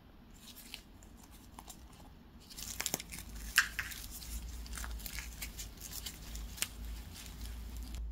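Baked croissant with a crisp, flaky crust being torn apart by hand: a few faint crackles at first, then from about two and a half seconds in a dense run of crackling and flaking, with one sharp crack soon after.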